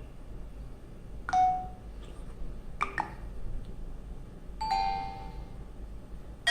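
Short electronic chime alerts played through the HTC Desire 610's phone speaker: three separate chimes about a second and a half apart, each a quick ping that rings out briefly and fades.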